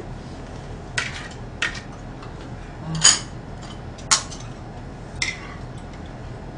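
Spoons and chopsticks clinking against ceramic bowls and plates while eating: about six separate clinks spread out, the loudest about three seconds in with a short ring.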